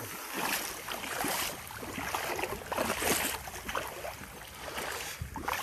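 Someone wading through shallow marsh water: uneven sloshing and splashing in surges with each stride.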